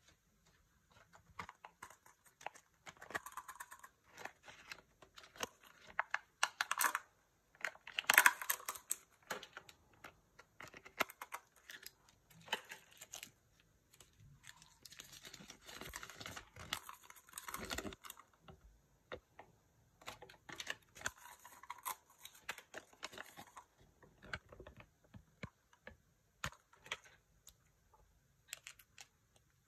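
Kinder Joy egg wrapper and plastic toy packaging torn open and crinkled by hand, in irregular crackling bursts loudest about eight seconds in. Light clicks and rustles of small plastic toy pieces being handled follow near the end.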